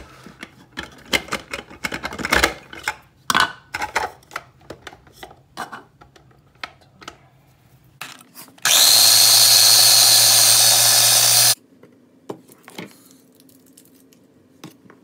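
Small electric food chopper running for about three seconds, one steady motor whir that starts and stops abruptly, chopping lemongrass, green onions, garlic and ginger. Before it, a run of clicks and knocks as the chopper's plastic bowl and lid are handled.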